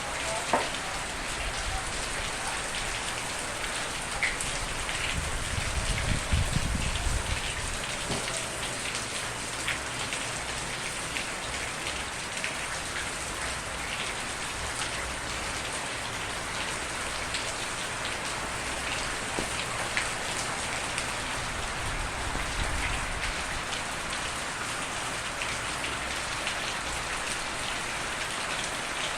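Steady rain falling, an even hiss with individual drops tapping on a surface. A brief low rumble swells and fades about six seconds in.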